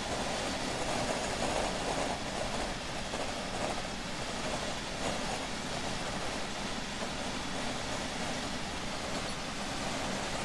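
Steady road and engine noise inside a semi-truck's cab while cruising on the highway.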